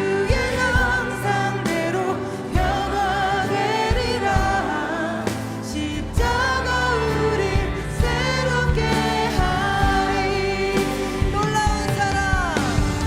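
Contemporary Christian worship music: voices singing a praise song together over a band, with a steady drum beat.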